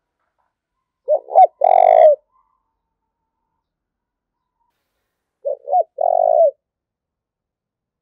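Spotted dove cooing its challenge call: two phrases about four seconds apart, each two short notes followed by a longer one.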